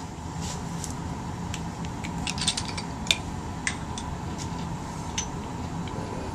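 Several light, sharp clicks and clinks of a small glass vial being picked up and handled, most of them bunched a little before the middle. Under them runs the steady hum of a ventilation fan with a faint steady tone.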